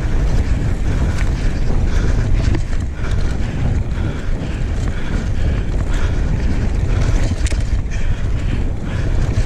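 Wind buffeting the microphone of a camera on a mountain bike riding fast down a sandy dirt road, a steady heavy rumble with the tyres on the dirt beneath it. A few faint knocks from the bike come through.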